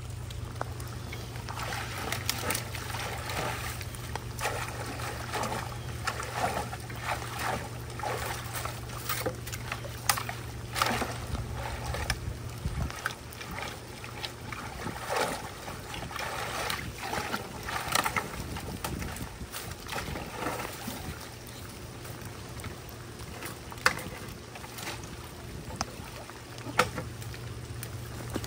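Floodwater running out of a culvert outlet while a long-handled rake is dragged through the sticks and brush snagged on a fence there, giving irregular scrapes, snaps and splashes over the steady water.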